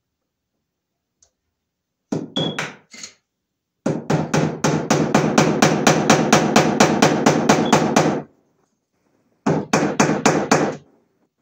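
Hammer tapping a cable staple into wood over electrical cable: a short group of about five taps, then a fast, steady run of about two dozen taps at roughly six a second, then about six more taps near the end.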